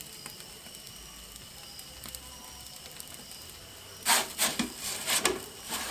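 Small metal pizza peel scraping on the stone floor of a propane Ooni Koda pizza oven, several short harsh scrapes starting about four seconds in, over the steady low hum of the gas burner.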